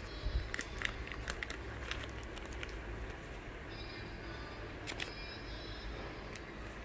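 Thin plastic packaging crinkling and crackling as cotton-bud packs are handled and a bud is drawn from its zip bag. The sharp crackles are scattered, thickest in the first two seconds and again about five seconds in, over a steady low hum.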